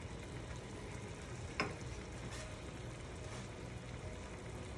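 Chicken pieces frying gently in ghee with onion and cashew-poppy paste in a frying pan, a steady low sizzle. One light tap comes about a second and a half in.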